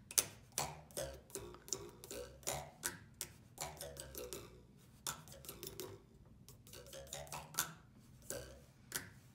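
A wooden popsicle stick hanging off a table edge is plucked again and again with a finger, giving short buzzing twangs a few times a second. The pitch shifts as the stick is slid along the edge, which changes how much of it overhangs.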